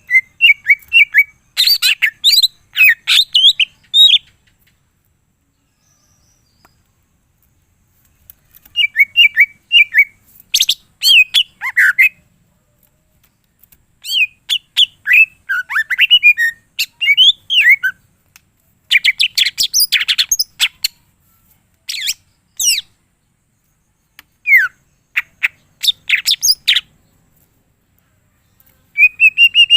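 Cucak ijo (green leafbird) singing in bursts of quick chirps and sweeping whistled notes, its song mixing in the fill-in phrases (isian) that keepers prize, with silent gaps of a few seconds between phrases.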